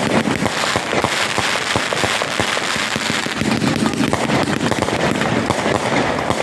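Fireworks going off in a dense, continuous run of sharp cracks and pops.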